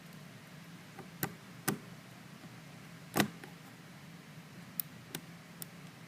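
Scattered sharp clicks and taps of metal lock-picking tools working in a plastic-bodied Master Lock 410 lockout padlock: about six in all, the loudest about three seconds in, over a faint steady hum.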